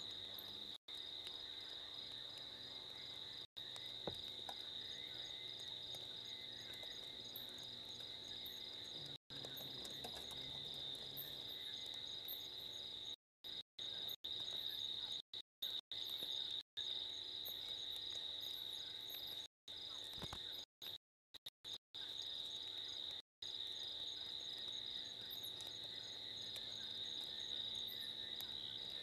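Night insects trilling in one steady high-pitched chorus, with a faint pulsing beat above it. The sound cuts out completely for moments, several times.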